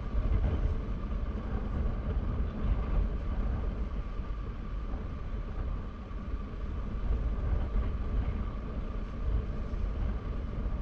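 Steady low rumble of a vehicle on the move, with a faint constant whine above it.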